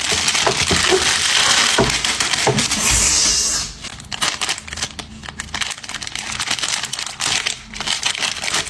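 Plastic wrapper of a sausage being peeled open, crinkling and tearing. It is loudest for the first three and a half seconds, then goes on as quieter scattered crinkles.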